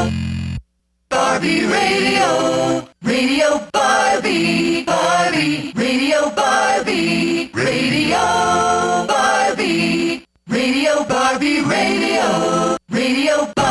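1998 Barbie Dance With Me talking boombox toy playing a sampled pop song with singing in its radio mode, broken by four brief silent drop-outs. This unit plays low, about a whole step below pitch.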